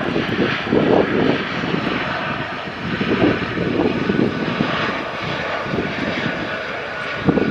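Fixed-wing aircraft's engines running in a steady roar with a faint whine on top, with wind buffeting the microphone in irregular gusts.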